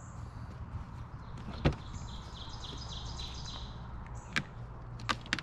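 A single thump about a second and a half in as the cat drops out of its plastic pet carrier onto the UTV's cargo bed, then a few sharp taps near the end. A songbird sings a quick run of repeated chirps in the background.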